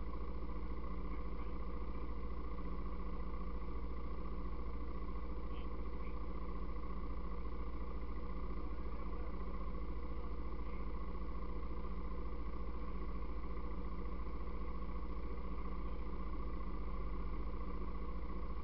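ATV engine idling steadily at an even pitch.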